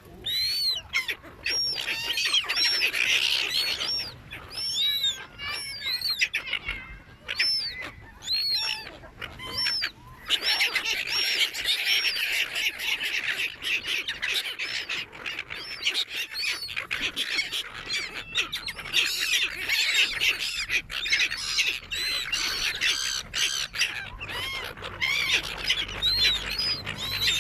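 A flock of seagulls being fed, crying over one another in a dense, continuous chorus of short, rising-and-falling squawks.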